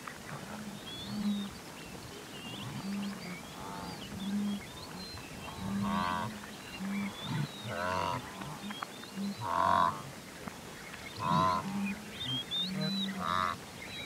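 A herd of blue wildebeest calling: a steady run of short, low grunts, with louder nasal honking calls every second and a half to two seconds. Larks and other birds chirp high above them.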